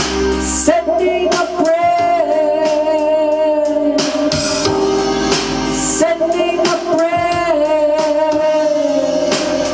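Music: a song with a voice holding two long notes over instrumental backing and drum beats.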